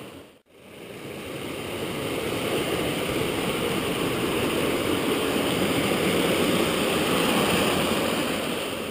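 Rushing water of a small woodland waterfall and rocky stream, a steady noise that fades in over the first second or two.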